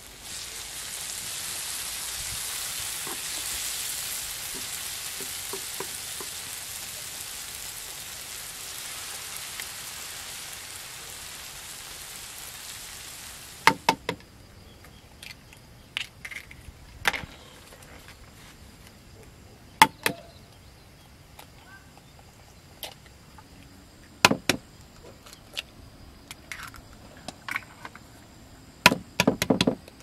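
Chopped tomatoes and green peppers sizzling steadily in a wide pan, stirred with a wooden spatula. About halfway through the sizzle stops and sharp taps follow every few seconds as eggs are cracked on the rim of a bowl.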